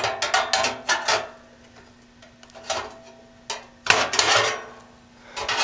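Small hard parts being handled: irregular clatter and scraping of metal and plastic pieces, in short bursts with quieter gaps between them.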